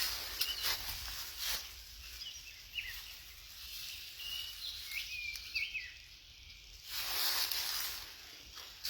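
Footsteps rustling through ferns and undergrowth at the start and again near the end; in the quieter stretch between, birds give a run of short, high chirps and whistled slides.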